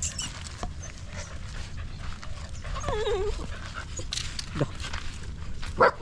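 A stray puppy whining: a wavering cry that falls in pitch about halfway through, then a short, sharper and louder cry near the end.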